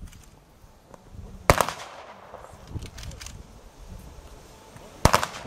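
Two sharp gunshot cracks, about three and a half seconds apart, each with a short echo: rifle volleys of a military funeral honour salute.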